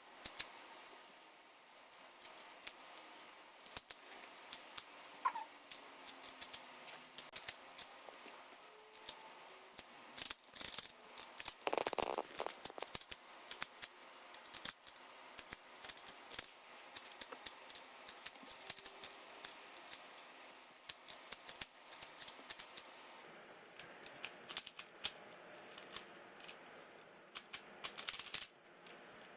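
A 3x3 Rubik's cube being turned fast by hand: rapid plastic clicks and rattles of its layers turning, in quick flurries with short pauses.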